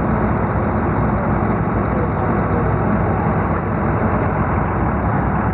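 John Deere farm tractor's engine idling steadily with an even low pulsing.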